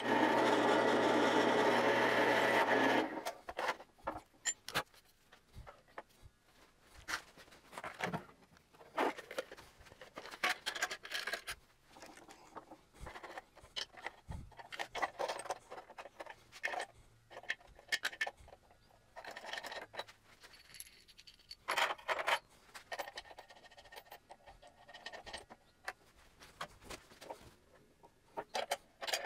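Benchtop drill press running for about the first three seconds, then stopping abruptly. After that come scattered scrapes, clicks and knocks as the metal chassis of an HP amplifier is shifted and handled on the drill press table.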